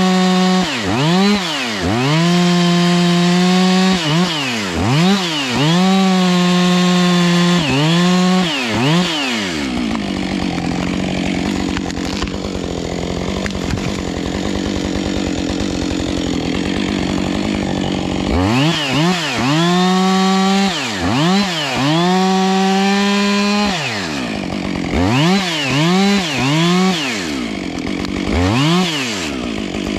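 Two-stroke chainsaw revving in repeated bursts: held at full throttle for a second or two at a time, with quick drops and climbs between. It falls back to idle for about eight seconds in the middle, then revs in bursts again.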